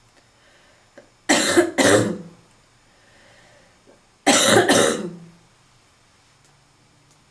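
Barking smoker's cough: two coughs in quick succession just over a second in, then another pair of two about three seconds later.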